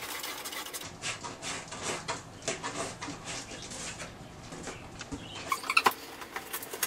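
A cat digging and scratching in a cardboard box, a run of rustling, crackly scratches, with a few louder sharp sounds near the end.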